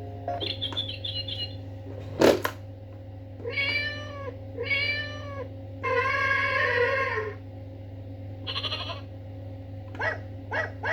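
A sharp click about two seconds in, then a sound-effect toy playing a recorded cat meowing three times, two short meows and a longer third one, with a few short high sounds near the end over a steady electronic hum.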